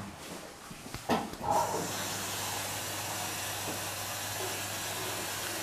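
A steady hiss that switches on abruptly about a second and a half in and holds even, over a faint low hum, after a couple of short knocks.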